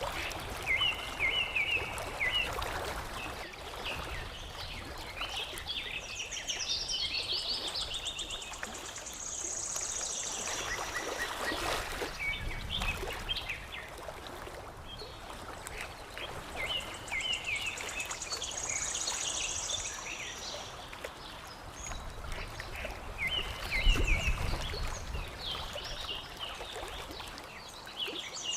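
Songbirds chirping and singing in short repeated phrases over the steady wash of lapping water.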